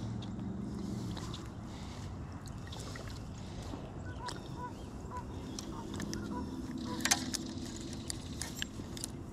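Low, steady hum of a distant engine that eases off in the middle and comes back, with a string of short high calls and scattered clicks over it.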